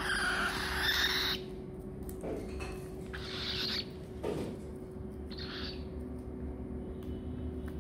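Cockatiels giving short, harsh, hissing calls: one long one at the start, then two shorter ones, over a faint steady hum.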